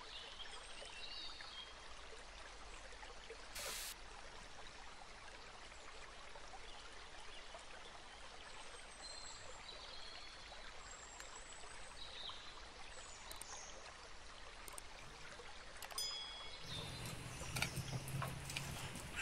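Faint steady rushing hiss like a flowing stream, with brief high chirps scattered through it. Near the end, a knife and fork cut through a crispy fried fish fillet on a plate, with a few clinks.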